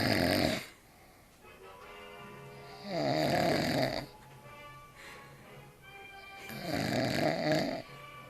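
A man snoring heavily after drinking far too much beer: one snore dies away at the start, then two long, loud snores follow at a slow, even breathing pace.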